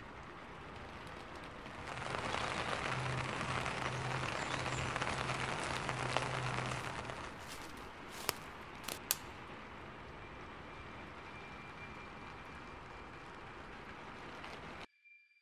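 Steady rain, swelling louder for several seconds, then quieter, with a few sharp clicks a little past the middle. It cuts off abruptly near the end.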